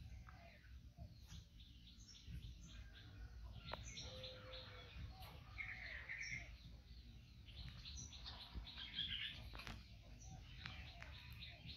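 Faint outdoor ambience with birds chirping now and then: short, high chirps scattered throughout, a few fuller calls in the middle.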